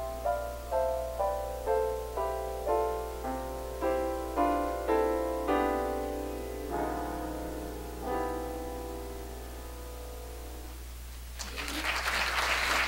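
Upright piano playing a string of struck chords, about two a second, into two closing chords that are held and left to ring out and fade. Applause breaks out near the end. A steady low hum runs underneath.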